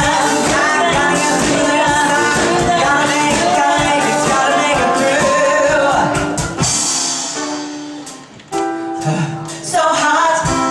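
Live band with a male and a female singer, a ukulele and a drum kit, performing a fast pop-song medley. About six and a half seconds in the drumming stops and the music dies away, then sustained chords and singing come back in about two seconds later.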